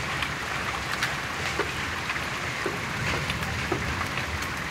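Heavy rain pouring down in a steady roar, with scattered sharp ticks of hailstones striking.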